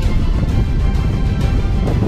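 Background music with a dense, steady low end.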